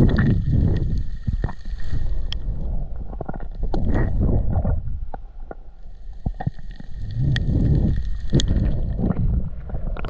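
Underwater sound picked up by a camera's microphone beneath the surface: a muffled low rumble of water movement that swells and fades in surges, with many scattered sharp clicks and crackles.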